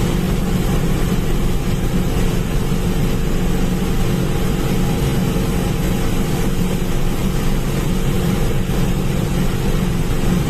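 TRM M6 sugarcane harvester's 200 hp engine and harvesting machinery running steadily under load, heard from the operator's seat. A constant low drone with no breaks or changes.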